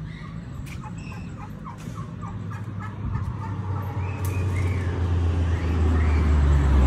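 Domestic turkey calling: a quick run of short, evenly spaced clucks in the first couple of seconds. A low steady hum grows louder toward the end.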